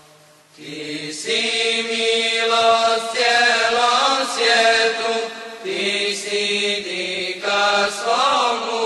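Singing of an ilahija, an Islamic devotional song, in long held, ornamented notes; the singing drops away for about half a second at the start, then resumes.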